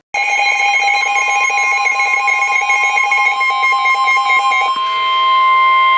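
Weather-alert alarm tone announcing an incoming severe thunderstorm warning: a shrill, rapidly pulsing alarm of several tones for about four and a half seconds, then a single steady tone near the end.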